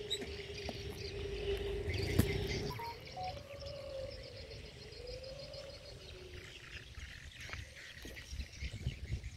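Open-field ambience: wind rumbling on the microphone, insects trilling rapidly and birds chirping, over a steady hum that wavers in pitch and fades out about six seconds in. A sharp click comes about two seconds in.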